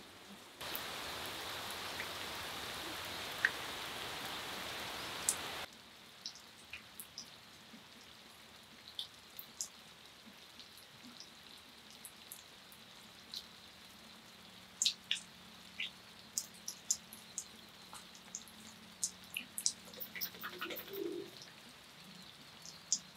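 Rain falling: a steady heavy hiss of rain for about five seconds that cuts off suddenly, then lighter rain with many scattered drops and drips.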